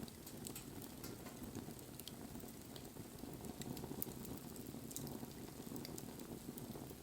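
Wood bonfire burning: a steady low rush of flames with many small, irregular crackles and pops from the burning wood.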